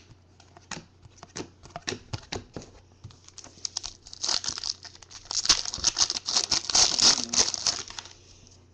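Trading cards being handled with light clicks and slides, then about four seconds of dense crinkling and tearing as a foil card-pack wrapper is torn open and crumpled.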